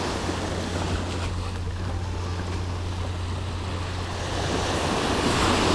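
Small waves breaking and washing up on a sandy beach, with wind rumbling on the microphone. It grows a little louder near the end.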